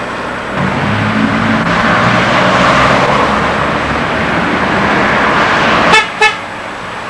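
A car passing, its road noise swelling and then fading, followed by two short horn toots about six seconds in.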